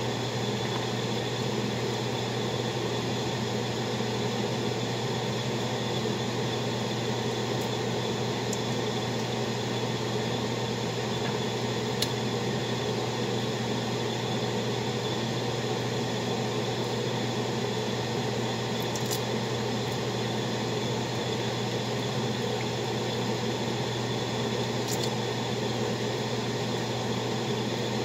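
Steady mechanical hum with a low drone and an even hiss, like a fan or appliance running, with a few faint clicks.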